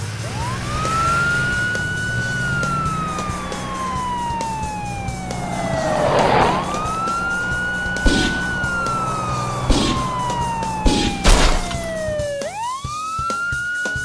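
Police car siren wailing in slow cycles: each rises quickly, holds briefly, then slides slowly down, about every six seconds. A few sharp knocks sound in the second half.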